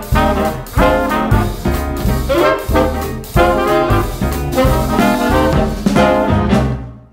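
Upbeat background music with a steady beat, fading out near the end.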